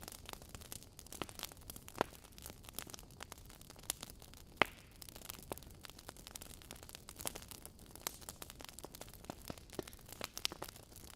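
Burning logs in a fireplace crackling: irregular sharp pops and snaps over a low steady hiss, the loudest pops about two seconds in and a little before the middle.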